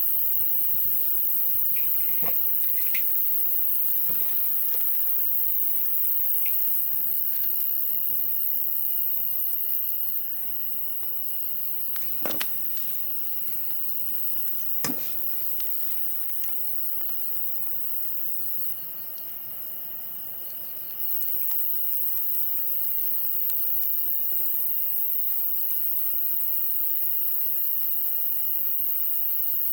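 Crickets and other insects chirping steadily, with a pulsed trill joining in the second half, over a high hiss that eases for about ten seconds in the middle. A few sharp pops from the wood campfire, the loudest two about halfway through.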